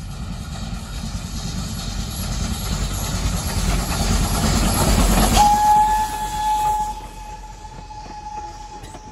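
Steam locomotive dressed as Thomas the Tank Engine running past close by, its rumble growing louder as it comes near. About halfway through its whistle starts, one long steady high note held almost to the end, as the passenger coaches roll by with clickety-clack on the rails.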